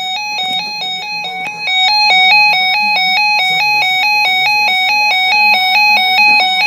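Electronic music: a fast melody of clean, beeping notes over a low bass line, louder from about two seconds in.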